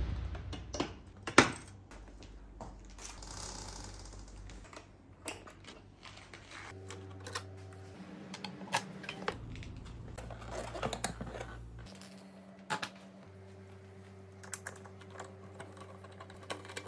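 Scattered light clicks and taps of hands and a tool working on a motorcycle, over a low steady hum that changes with each shot.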